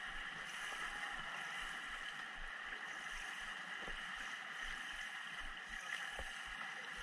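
Indoor swimming pool ambience: a steady wash of water noise in an echoing hall, with faint small splashes now and then from freestyle swimmers stroking toward the camera.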